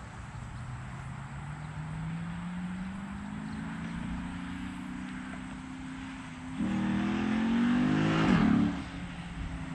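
An engine accelerating, its pitch rising steadily. About six and a half seconds in it grows louder and fuller, then its pitch drops and it cuts off about a second later.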